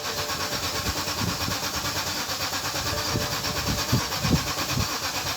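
2008 BMW X5's engine cranking on the starter motor for about five seconds with an even, rhythmic churn, never catching, then cutting off abruptly: a crank-no-start fault.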